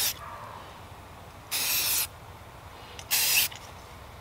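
Aerosol spray-paint can sprayed in short bursts through mesh netting onto a rifle to lay down camouflage: one hiss cuts off just as it starts, then two brief hisses about a second and a half apart.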